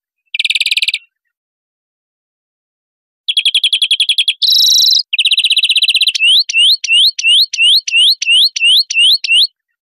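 European greenfinch singing: rapid chattering trills, a short buzzy wheeze about halfway through, then a run of about ten quick rising notes near the end.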